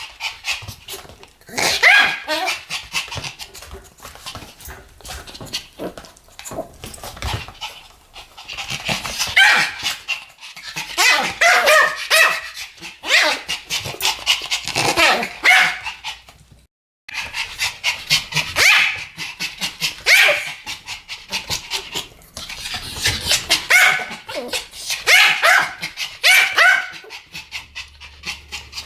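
Two Pomeranians barking together in rapid runs of high, sharp yaps, coming in bursts with short lulls between them. There is a brief cut to silence about two-thirds of the way through.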